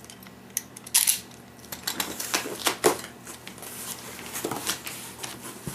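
Box cutter slicing through the tape and cardboard of a shipping box: irregular sharp scrapes and crackles, with the loudest strokes about a second in and between two and three seconds in.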